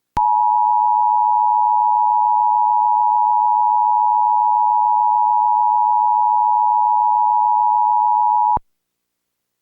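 Emergency Alert System attention signal: a loud, steady two-tone beep held for about eight seconds, then cut off abruptly. It is the alarm that opens an emergency alert broadcast.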